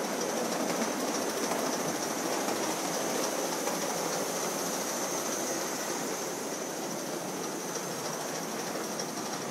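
Gauge 1 live-steam model of an LNER B12 locomotive running slowly along the track: a steady hissing rush of steam and wheels on rail, with a thin high tone held above it.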